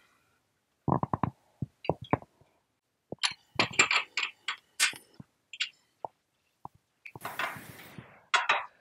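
Scattered metallic clinks and knocks as a 216 mm, 64-tooth saw blade is fitted onto a table saw's arbor and handled in the table opening. About seven seconds in there is a short scraping rustle as the red throat insert is set into the saw table.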